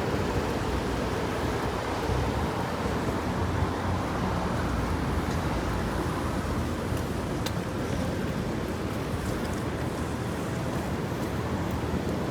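Steady wash of city street noise in the rain: traffic hissing on wet roads, mixed with falling rain, with a few faint ticks.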